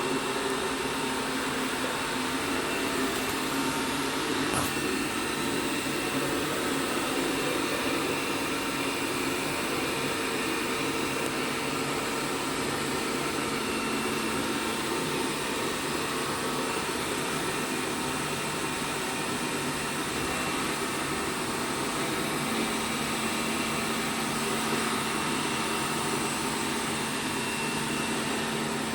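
ELARI SmartBot Lite SBT-002A robot vacuum cleaner running steadily, a constant suction-motor hum. The hum's tone shifts slightly lower about three-quarters of the way through, and there is a single brief click about five seconds in.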